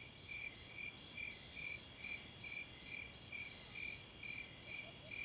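Crickets and other night insects chirping: a steady high trill with a slower chirp that repeats evenly about twice a second.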